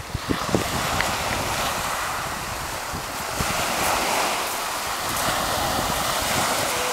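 Sea waves washing onto a beach, with wind buffeting the microphone in a few low knocks in the first second.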